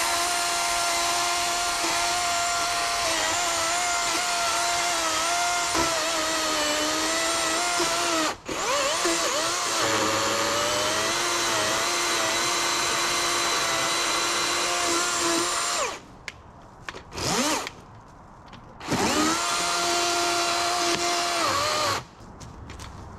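Chainsaw cutting through a fallen tree in long bursts at full speed, its pitch sagging now and then under load. It stops briefly about eight seconds in, cuts out near sixteen seconds, blips once, then runs for another short cut before stopping.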